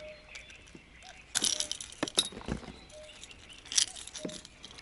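Metallic clinks and rattles of a fishing lure and its hooks being worked out of a deep-hooked pike's mouth, in three or four short bursts.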